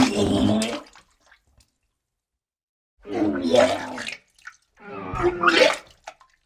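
Person retching and vomiting in three heaving bursts, each a strained, throaty voice sound lasting about a second. The first is already under way and ends just under a second in; the other two come about a second and a half apart.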